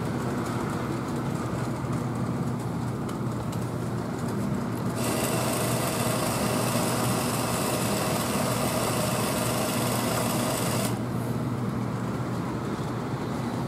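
O gauge three-rail model train running on the layout: a steady motor whirr and wheel rumble over a low electrical hum. A brighter hiss joins for several seconds in the middle.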